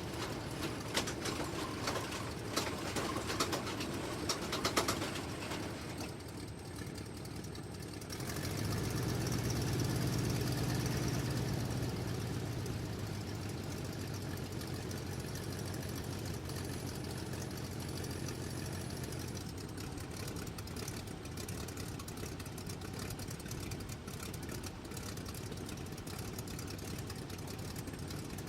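A car engine starts about eight seconds in, runs up briefly, then settles into a steady idle. Before it there is a run of clicks and knocks.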